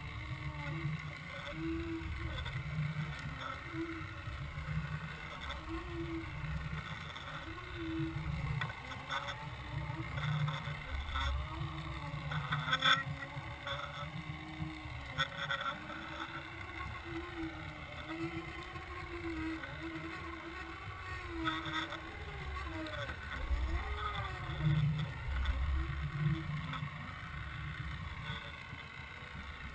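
Boat motor heard underwater from a towed camera: a droning hum that wavers up and down in pitch over a low rumbling rush of water, with a brief knock about halfway through.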